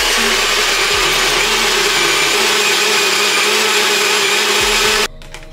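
Personal bullet-style cup blender running steadily at full speed, blending a thick shake, then cutting off abruptly about five seconds in.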